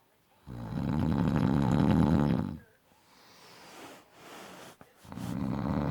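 A man snoring loudly: two long, rattling snores of about two seconds each, the second starting about five seconds in, with a fainter breathy exhale between them.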